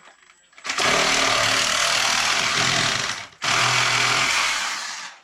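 A handheld power tool runs in two bursts of about two and a half and two seconds, with a brief pause between them.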